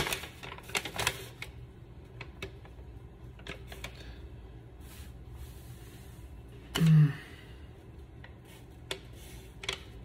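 Paper instruction sheet handled and rustled, with scattered light clicks. A man gives one short hum about seven seconds in.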